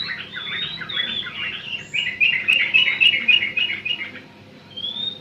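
Young Eurasian tree sparrow chirping over and over in high, short notes, with a quick run of repeated chirps in the middle. The calls ease off about four seconds in, then a single rising call follows.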